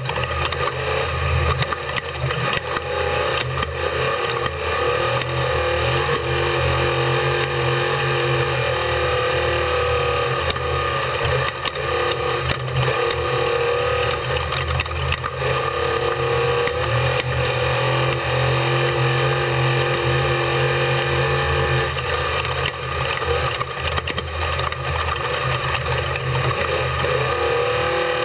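An unlimited-class desert race truck's engine, heard on board, running hard at speed. Its pitch rises and falls with the throttle, and scattered knocks and rattles come through over the rough ground.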